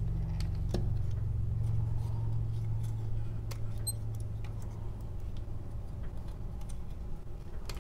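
Small, faint clicks of hard plastic parts of a Transformers figure being handled and pushed into place during transformation, scattered over a steady low hum.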